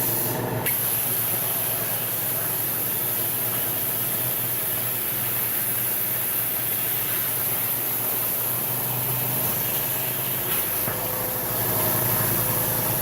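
Shop air compressor running steadily, a motor hum over a constant hiss.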